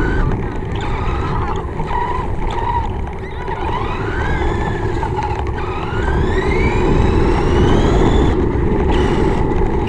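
Remote-control car driving, its electric motor whining and rising in pitch as it speeds up, over a steady low rumble.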